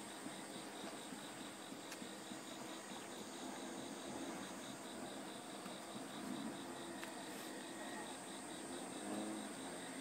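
Insects chirping: a steady high-pitched hum with an even, pulsing trill just below it.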